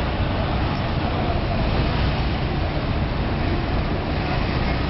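Steady vehicle noise: engines running with a continuous low rumble and road traffic.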